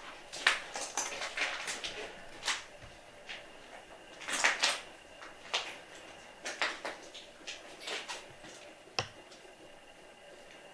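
Footsteps crunching over debris on the floor: a string of irregular crunches and clicks, loudest in a cluster around the middle, with one sharp click near the end.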